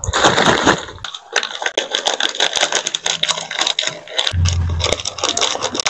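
Plastic snack packet crinkling and rustling, with a rapid run of sharp crackles, as coated peanuts are tipped out of it into a bowl of soup. A short low hum joins late on.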